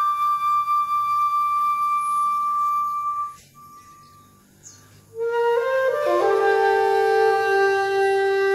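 Background flute music: one long held high note that fades away about three seconds in, a quieter gap of about two seconds, then lower held notes entering one after another.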